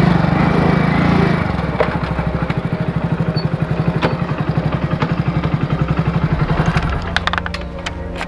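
A small engine running with an even, fast pulse of about eight beats a second; it gets quieter near the end.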